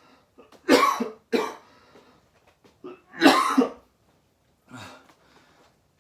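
A man coughing and blowing out hard breaths, out of breath after a hard set of burpees: three loud coughs in the first half and a weaker one near the end.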